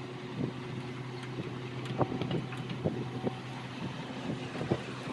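Engine running steadily at a constant low speed, with scattered sharp knocks and clanks.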